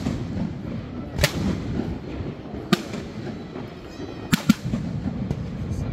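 Aerial fireworks shells bursting: four sharp bangs spread across a few seconds, the last two in quick succession, over a steady low background rumble.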